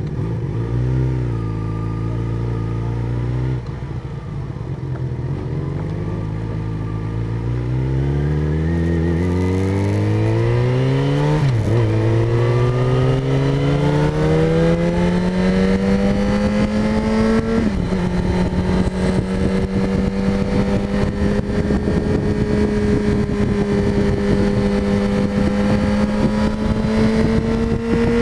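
Yamaha motorcycle engine, heard from the handlebars, pulling away from a standstill. Its revs climb steadily from about eight seconds in and drop at two upshifts, about eleven and a half and eighteen seconds in. After the second shift they keep rising slowly as the bike gathers speed, with wind noise building.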